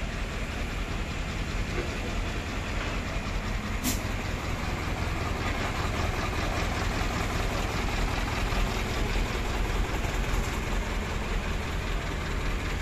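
Diesel engine of an Escorts Hydra 1242 pick-and-carry crane running steadily, a little louder in the second half. A single sharp click comes about four seconds in.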